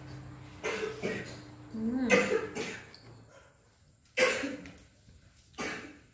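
A woman eating very spicy seblak noodles with chopsticks: about six short, sharp, breathy bursts of slurping and coughing, the spice catching in her throat.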